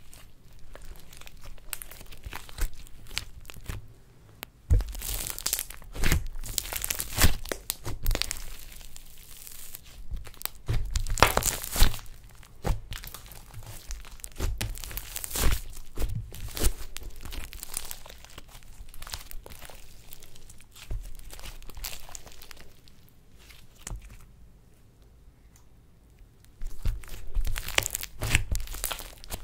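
Hands kneading, stretching and folding slime with makeup and glitter mixed in: irregular sticky crackling, squishing and tearing sounds. It goes quieter for a few seconds near the end, then picks up again.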